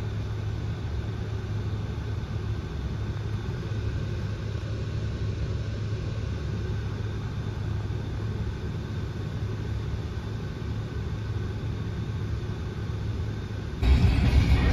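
Car engine idling, heard from inside the cabin as a steady low hum. Near the end it switches abruptly to the louder rush of road and wind noise from the car driving at speed.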